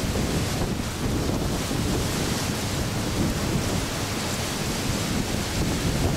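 Storm wind buffeting the microphone over heavy seas breaking: a steady, dense rushing noise with a deep rumble underneath.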